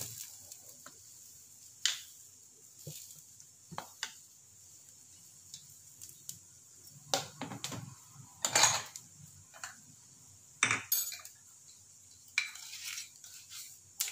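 Scattered clinks and knocks of kitchen utensils and containers being handled, a few at a time, the loudest a little past halfway and again about three-quarters through.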